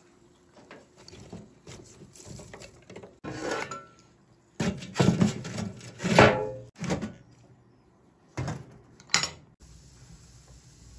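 Kitchen clatter from pots, dishes and utensils being handled: scattered light taps, then several louder knocks and clanks from about three to nine seconds in.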